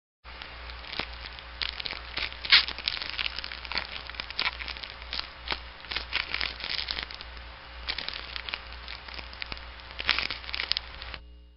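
Dense, irregular crackling and crunching, many sharp clicks and cracks over a low steady hum, with one louder crack about two and a half seconds in; it starts just after the beginning and stops shortly before the end.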